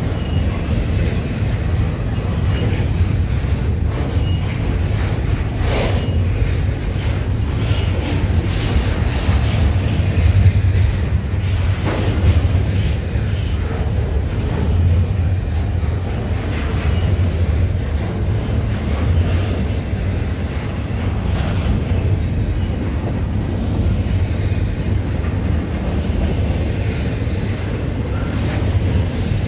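Canadian National double-stack container freight train passing close by: a steady rumble of wheels on rail, with a few sharp clanks from the cars now and then.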